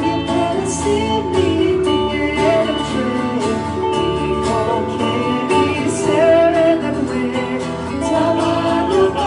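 Live band playing a song, with strummed guitar, a steady beat and singing.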